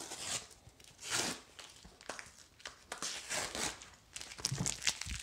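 Plastic packing tape being peeled and torn off a corrugated cardboard mailer in several separate ripping, crinkling pulls, the torn tape rustling in the hand.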